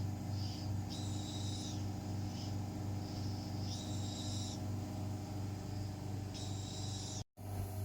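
A VelaShape-type slimming machine running after its face handle is started: a steady, pulsing electrical hum with a short hiss of air about every three seconds, three times, as the suction cycles. The sound cuts out for an instant near the end.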